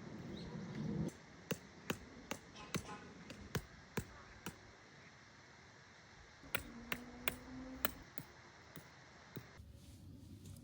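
Irregular sharp clicks and light knocks, about a dozen, coming in two clusters, from tent-pitching gear being handled.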